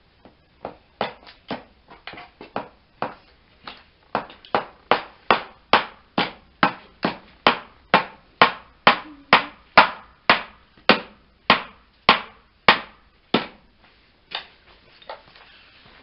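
Hammer driving nails into the wooden lid of a small nest box: a long run of sharp strikes, about two to three a second, lighter at first and harder towards the middle. The strikes stop a couple of seconds before the end, followed by a few light taps.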